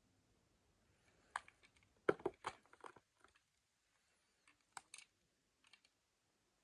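Scattered light clicks and taps of hands handling a model bus and its packaging, busiest around two seconds in, with a few more clicks later.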